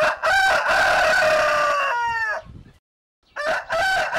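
Banat Naked Neck rooster crowing twice, each crow about two seconds long with a held middle and a falling end; the second crow begins about three and a half seconds in.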